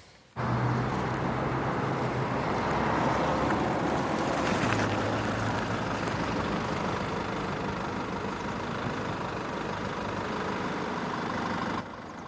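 Steady motor-vehicle engine and road noise with a low hum. It starts suddenly about half a second in and drops away abruptly near the end.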